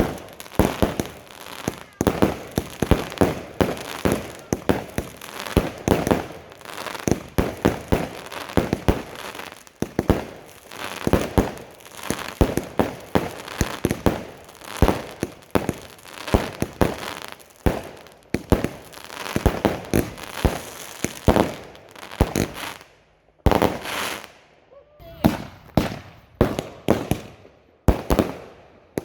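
Fireworks going off in quick succession: a dense run of sharp bangs and crackles, several a second. After a short lull about three-quarters of the way through, the bangs come one at a time, more spaced out.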